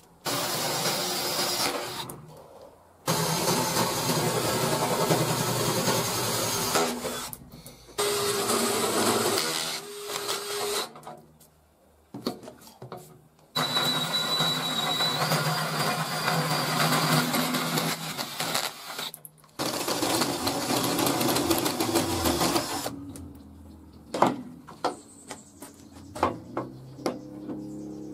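Electric drill boring holes in a 6 mm steel table top, running in several bursts of a few seconds with short pauses, its motor pitch shifting under load, then a few brief blips near the end.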